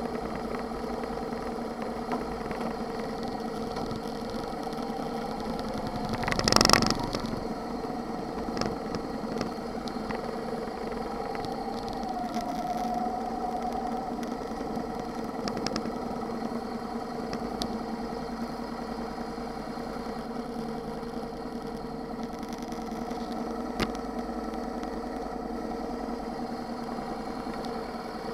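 Motorcycle engine running steadily while the bike cruises along, heard from a camera mounted low on the motorcycle. There is a short, loud rush of noise about six and a half seconds in.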